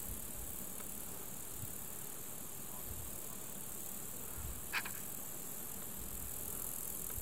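A bird gives a single short, sharp call about five seconds in, over a steady high hiss and a low uneven rumble.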